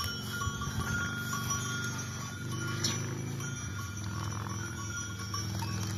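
Goat bells clinking now and then over a low, steady hum, with a single click about three seconds in.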